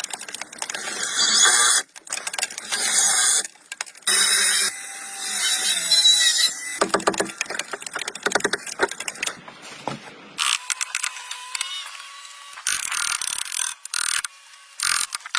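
Rapid run of short, abruptly cut clips of hand-tool work on wood: scraping, clicking and knocking noises that change every second or two.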